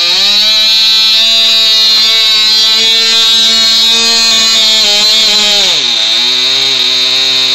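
Small model-airplane combustion engine on a hand-held balsa scale Cessna, running steadily at a fast speed, then throttled back about six seconds in to a lower, steady speed.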